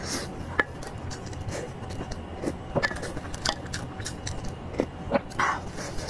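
A person chewing a mouthful of soft cooked egg yolk coated in chili oil, close to the microphone: wet mouth smacks and sharp little clicks about once a second.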